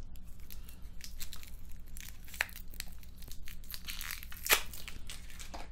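Plastic packaging crinkling and crackling as it is pulled off a new webcam: irregular small crackles, with a sharper snap about four and a half seconds in.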